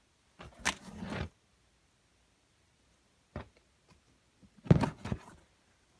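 Handling noises from unpacking a parcel: a short rustle and knock about half a second in, a light click past the middle, then a louder knock with a brief rustle near the end, as items and packing are moved and set down.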